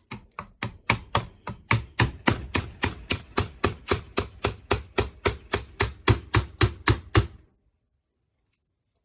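A steady run of about twenty-five light hammer taps, roughly three or four a second, on the Buick air-suspension compressor clamped in a vise, stopping abruptly after about seven seconds.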